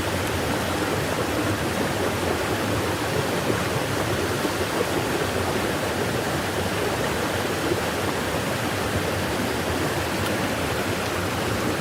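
Steady rushing of flowing water, an even noise without breaks.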